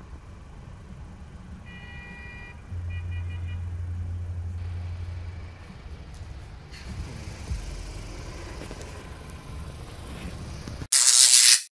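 Outdoor background noise with a low rumble throughout. About two seconds in there is a short pitched sound followed by a few quick pulses, then a steadier low hum for about three seconds. Near the end a loud burst of hiss lasts under a second and cuts off suddenly.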